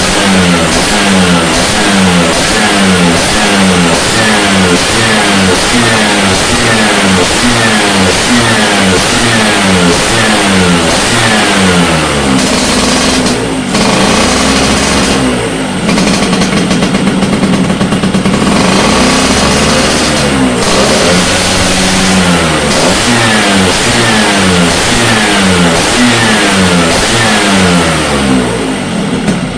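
Vespa Sprint's two-stroke single-cylinder engine revved over and over in quick throttle blips, each rise in pitch falling back. It is held at steadier revs for a while in the middle and drops away near the end. The engine is being tuned on a newly fitted PWK carburettor and intake manifold.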